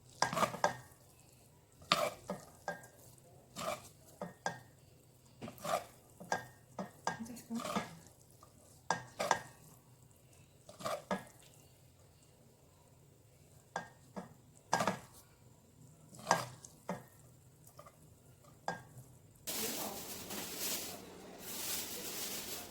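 A utensil stirring food in a pan, knocking and scraping against it at irregular intervals. Near the end, food sizzles steadily as it fries.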